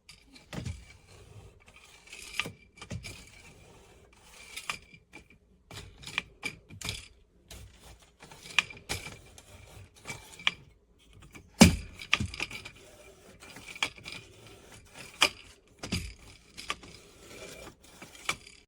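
Drink cans being handled in a plastic fridge drink organizer: irregular knocks and clicks, about one or two a second, with scraping as cans slide along the plastic.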